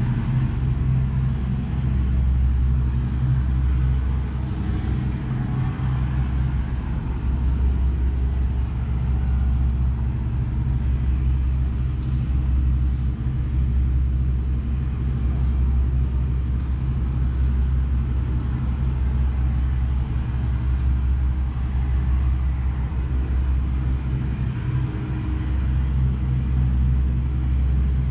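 Steady low rumble of motor engines in city street traffic, holding even throughout with no sudden events.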